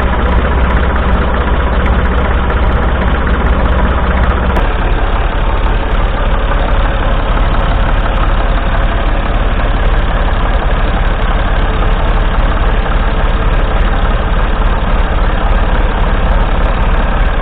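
Vintage diesel tractor engine running steadily. About four and a half seconds in, the deep low hum drops away and the engine sound carries on rougher.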